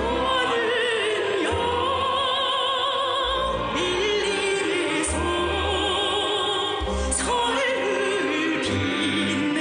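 A singer with strong vibrato, backed by instrumental accompaniment: a song playing.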